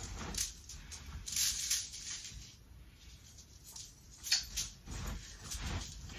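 Soft, irregular rustling and shuffling of a person moving and turning on the spot: footsteps and clothing rustle, with no steady tone.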